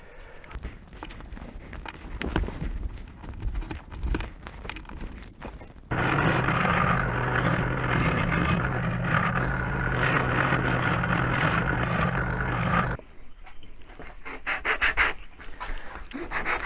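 Irregular cracking and clicking as small glued wooden parts are pried apart by hand. About six seconds in, a bench power tool starts abruptly and runs steadily with a low hum while working a 6 mm plywood plate, then stops suddenly about seven seconds later. Near the end, rubbing strokes of a sanding block on the wooden fuselage begin.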